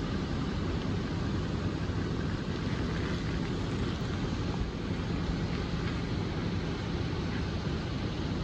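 Steady low rumble of heavy machinery, the diesel engines of mobile cranes running while they hold a suspended load.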